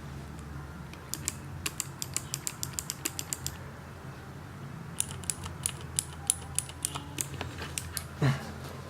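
Clicky mechanical keyboard switches (Kailh BOX clicky and Cherry-style clicky switches) pressed repeatedly, giving sharp clicks in two runs of roughly a dozen each, about four to five a second, with a pause between. A short low thud near the end.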